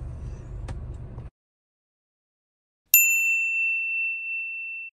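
Notification-bell 'ding' sound effect from a subscribe end-screen animation: a single bright ring about three seconds in that fades away over about two seconds. Before it, a low car-cabin rumble runs for about a second and then cuts off abruptly into silence.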